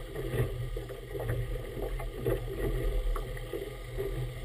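Choppy water slapping against the hull of a small boat in uneven splashes, with wind on the microphone.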